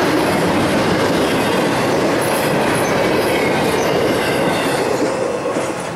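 Double-stack intermodal freight cars rolling past on steel rails, a dense clatter of wheels and rail joints that fades near the end as the last car moves away.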